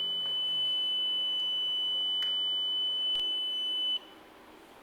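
Flood alarm gateway's buzzer sounding its alert as one steady high-pitched tone, which cuts off suddenly about four seconds in as the alarm is cleared and the system returns to normal. Two faint clicks are heard while it sounds.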